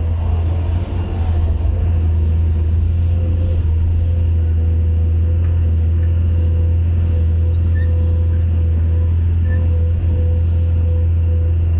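Excavator's diesel engine running steadily: a loud, even low drone with a thin steady whine above it and a few faint clicks in the first few seconds.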